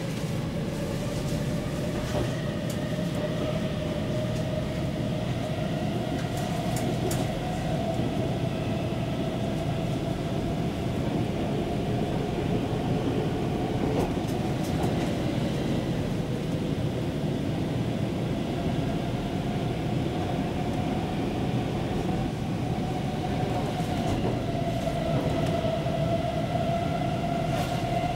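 Inside a Stockholm Metro C20 train running through a tunnel: a steady rumble of wheels on rail with a whine that drifts slowly in pitch, and a few clicks in the first several seconds.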